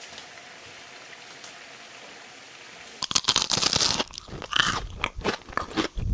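Crisp battered fried sweet potato slices crunching loudly in quick, irregular crackles, starting suddenly about three seconds in after a faint steady hiss.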